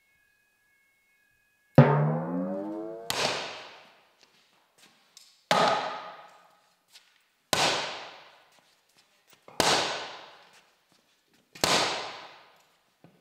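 Sledgehammer blows on a large bus tyre at its steel wheel rim, the work of breaking the bead to get the old tyre off. About six heavy strikes roughly every two seconds, each ringing out and fading over about a second; the first rings with a clear metallic tone.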